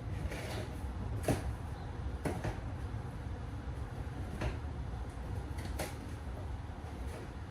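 About five short, scattered clicks and knocks from handling tools and parts, over a steady low hum.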